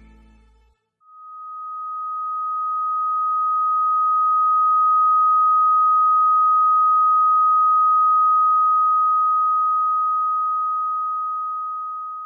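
A single pure, steady electronic tone, like a long beep. It starts about a second in, just after the last of the music dies away, swells up over a few seconds, holds at one pitch, and fades out near the end.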